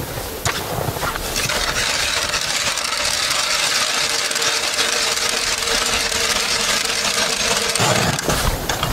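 Hand ice auger drilling a hole through river ice: a steady scraping grind of the blades cutting, which stops sharply near the end as the auger is pulled up.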